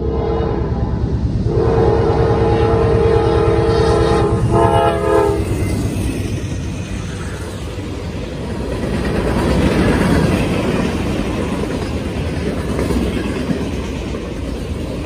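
Diesel locomotive air horn sounding a short blast and then a long, chord-like blast for the grade crossing over the first five seconds, followed by a freight train's cars rolling past with a steady rumble and wheel clatter on the rails.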